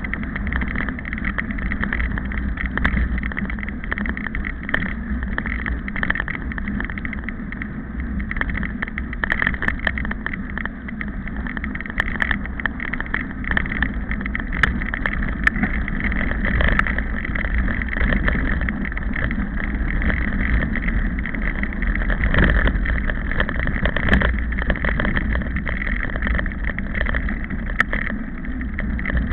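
Steady wind rumble and handling noise on the microphone of a small camera carried by a runner, with scattered knocks from footfalls and the camera's movement.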